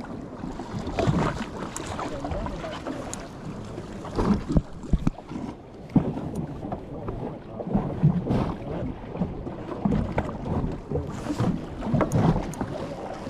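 Wind buffeting the microphone on a fishing boat at sea, with uneven rumbling gusts and a few scattered sharp knocks.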